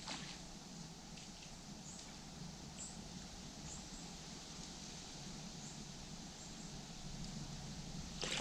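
Faint ambience of a shallow river: a steady low wash of flowing water, with a few brief, high squeaks scattered through it.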